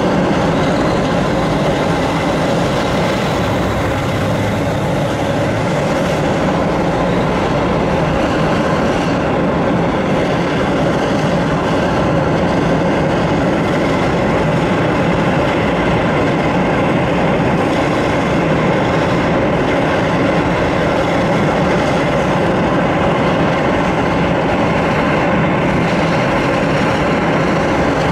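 Boeing 747-8's four GEnx-2B turbofan engines running at taxi power, a loud steady jet engine noise that holds even throughout.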